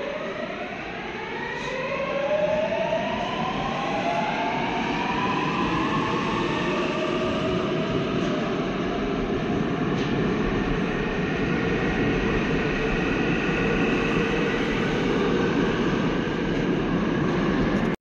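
A Seoul Subway Line 7 electric train pulls out behind platform screen doors. Its traction motors give a whine of several pitches together that rises over the first ten seconds or so as the train gathers speed, over a loud, steady running rumble that cuts off abruptly at the end.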